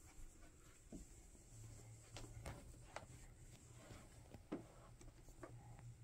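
Near silence: a faint low hum with a few faint scattered clicks and knocks from handling, the Hoover Platinum upright vacuum not running.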